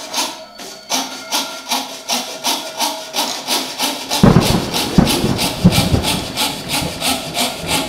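Hand fret saw cutting through a thin wooden board with steady back-and-forth strokes, about three a second. From about four seconds in, louder and deeper knocks join the sawing.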